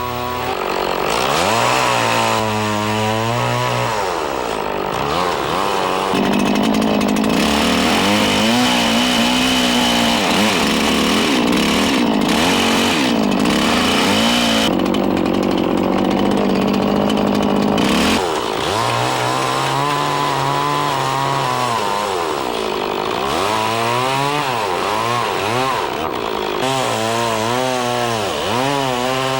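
Chainsaw cutting into a log to shape a round saddle notch. Its engine pitch drops and rises again and again as the cuts are made, and holds high and steady for a long stretch in the middle.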